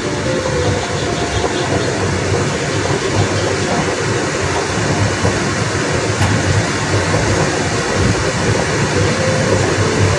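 Mushrooms and carrots steaming and sizzling in a covered wok over the stove's flame, a steady rushing noise.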